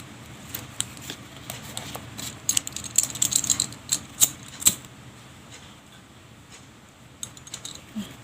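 Irregular small clicks and ticks from hands working the crochet piece and its tools, thickest about two and a half to five seconds in.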